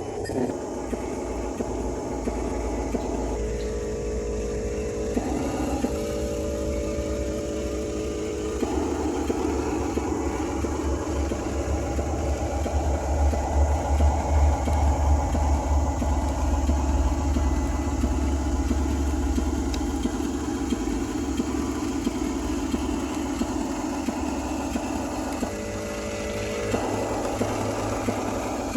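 Electric motors and gearboxes of Huina radio-controlled construction models whirring steadily, the tone shifting abruptly several times as different functions start and stop, with a heavier low rumble through the middle.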